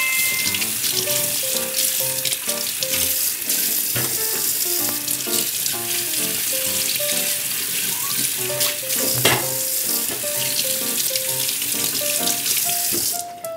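Kitchen tap running into a stainless steel sink, the stream splashing over a carrot being rubbed clean under it; the water shuts off just before the end. Light background music with a simple melody plays underneath.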